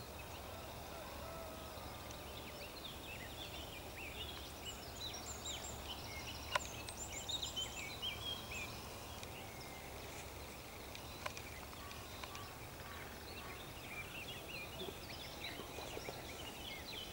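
Several small birds singing and calling over one another, with quick chirps, short trills and rising and falling whistles, over a steady low rumble. A single sharp click about six and a half seconds in.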